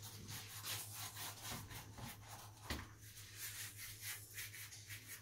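Repeated rubbing or scraping strokes, several a second, over a low steady hum.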